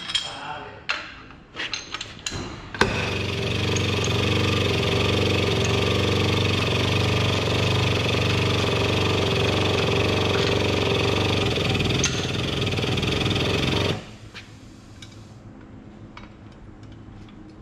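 Powered tube bender's motor running steadily for about eleven seconds while it bends a chromoly bar a few more degrees, starting sharply about three seconds in and cutting off suddenly near the end. A few light metal clinks come before it starts.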